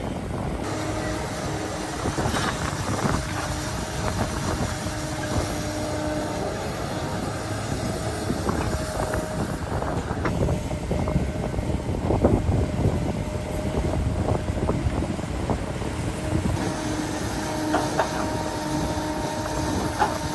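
Heavy construction machinery running, an engine with a steady whine over it and irregular metallic clanks and knocks.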